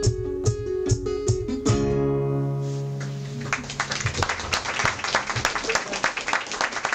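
Classical guitar and hand drums playing together, ending on a strummed guitar chord that rings out for about two seconds. About three and a half seconds in, applause starts and runs on.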